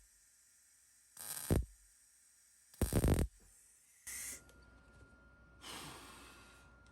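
MIG welder (Titanium MIG 140) laying short tack welds on sheet steel: two crackling half-second bursts about a second and a half apart, then a briefer burst and a fainter, longer hiss.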